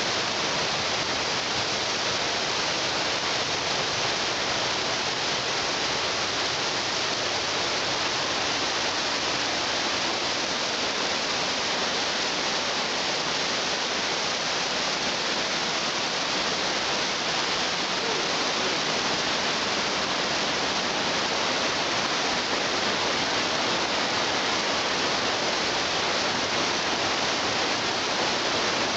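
A waterfall: falling water rushing with a steady, even hiss that does not change.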